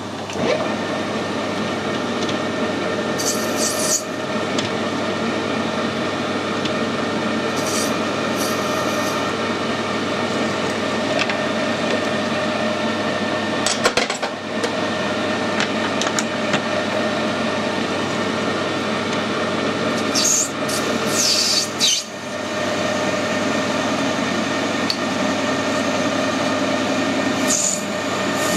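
Metal lathe running steadily with a hum and whine of its motor and gearing, a brass bar spinning in the chuck. Several short scraping bursts come as a tool works the edges of the brass, chamfering and deburring before parting off.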